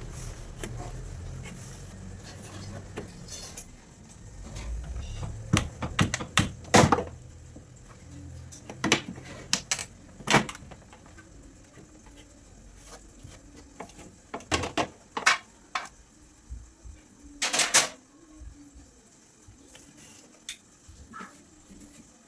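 Irregular knocks and clinks of containers and trays being handled while a refrigerator is emptied and cleaned, loudest about a third of the way in and again past the middle. A low rumble fades out over the first few seconds.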